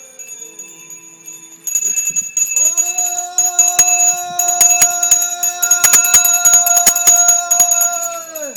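Zen monk on a takuhatsu alms round ringing a hand bell rapidly while calling out one long, drawn-out chanted note. The ringing starts about two seconds in, the call joins shortly after, holds a steady pitch, and drops in pitch as it ends near the end.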